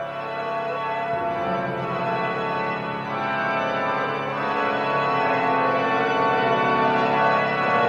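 Organ music of the horror-soundtrack kind: sustained organ chords with full, held notes, changing chord about a second in and slowly growing louder.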